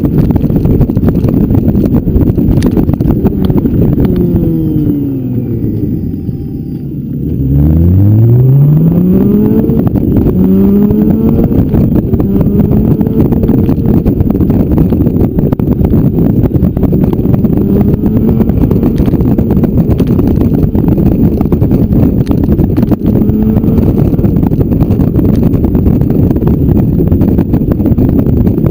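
Motorcycle engine under way with heavy wind rush on the microphone. The engine note falls as the bike slows, dipping about six to seven seconds in, then climbs twice in quick succession as it accelerates up through the gears, and settles into a steady cruise.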